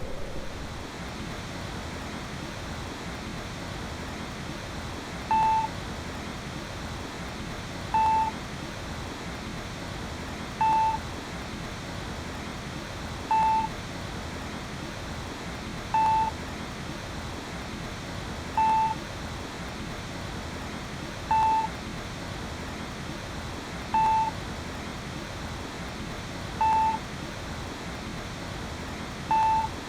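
Countdown timer sound effect: ten short, identical mid-pitched electronic beeps, evenly spaced about 2.7 seconds apart, starting about five seconds in, over a steady hiss.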